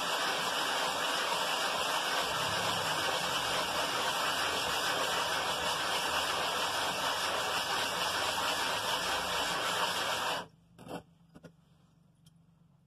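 A Briggs & Stratton 5 HP flathead cylinder head scraping steadily across sticky-backed sandpaper as it is lapped by hand to get its gasket face flat. The sanding stops suddenly about ten seconds in, followed by a couple of light clicks as the head is lifted.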